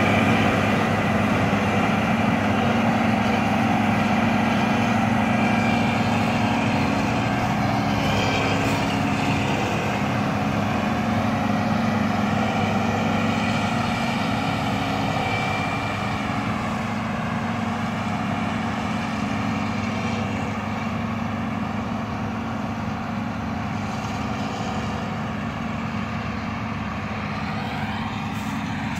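Self-propelled windrower's diesel engine running steadily as it cuts guinea grass, slowly growing quieter as it moves away.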